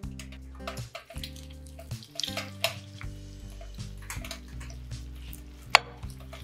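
Wooden spatula spreading and pressing wet grated potato mixture in a frying pan: soft wet clicks and scrapes, with one sharp knock near the end, over background music with held notes.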